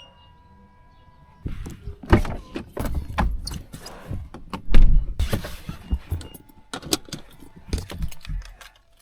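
Irregular clatter of knocks, clicks and rattles, like objects being handled, starting about a second and a half in, with a heavy thump near the middle.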